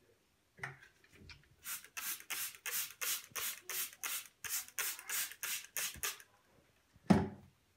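Trigger spray bottle squirting disinfectant onto a parcel: a quick run of about fifteen short hissing sprays, roughly three a second, then a single loud thump near the end.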